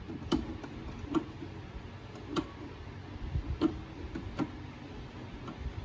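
Five or so sharp clicks at uneven spacing, roughly a second apart: controls being pressed on a Euro-Pro electronic sewing machine to select a stitch design.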